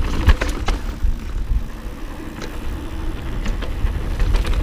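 Mountain bike rolling fast down a dirt trail, with wind buffeting the action camera's microphone and tyre noise, punctuated by sharp clicks and rattles from the bike over bumps.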